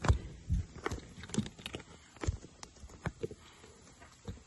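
A string of irregular clicks and knocks, about two a second, the first one the loudest: handling and shuffling noise as a hand-held camera is moved along at floor level under a motorcycle.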